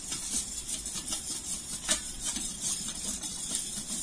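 Wire whisk stirring a thin, watery gram-flour batter in a stainless steel bowl, with light, irregular clicks of the whisk against the bowl and one sharper tap about two seconds in.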